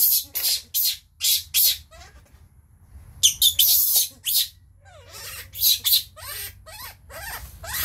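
Baby monkey crying in a string of short, shrill squeals and screeches, pausing for about a second some two seconds in, then starting up again.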